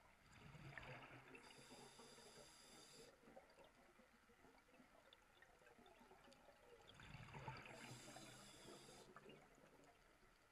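Scuba diver breathing through a regulator underwater, faint: two breaths about six seconds apart, each a swell of bubbling with a hissing rasp on top.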